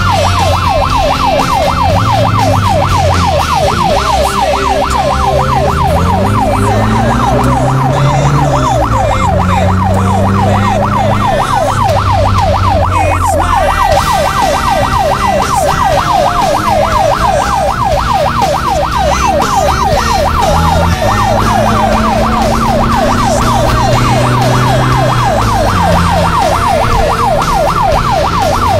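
Electronic background music: a fast siren-like synth warble repeating about four times a second over a stepping bass line.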